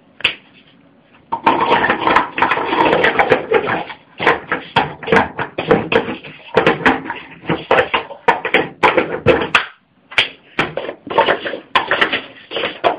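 Plastic speed-stacking cups clattering against each other and the mat as they are rapidly stacked up and brought back down, a dense run of light clacks starting about a second in, with a short break about three-quarters of the way through.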